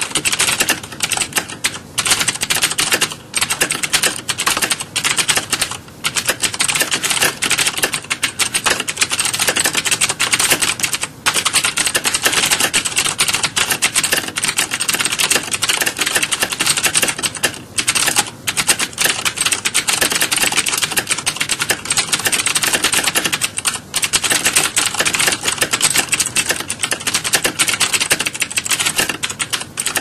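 Fast, continuous typing on a mechanical keyboard: a dense stream of key clicks with a few short breaks.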